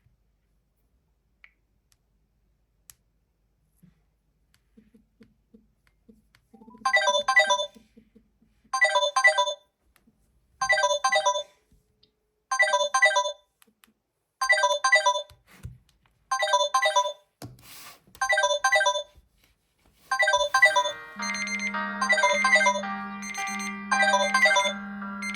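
Smartphone ringtone: a short, bright melodic phrase repeated about every two seconds, seven times, after a few seconds of near silence with faint clicks. About 20 seconds in, a fuller, continuous musical tone with a steady low note takes over.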